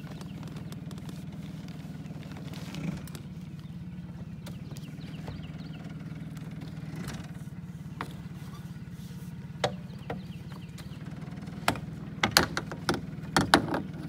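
A boat engine running steadily with a low hum. Near the end a quick run of sharp knocks and clatters against the aluminium jon boat as the line is handled at the bow.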